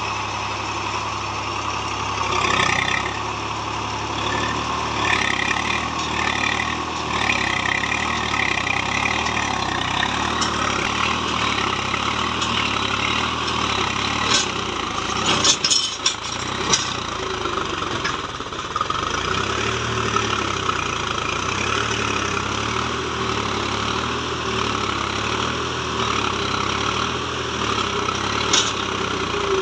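Swaraj 735 FE tractor's three-cylinder diesel engine running steadily under heavy load as it pulls a loaded trolley through soft mud. A few sharp clanks come about halfway through and again near the end.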